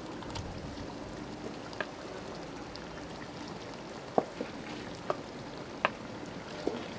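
Pot of tomato stew simmering: a soft, steady bubbling hiss, with a few sharp pops scattered through it.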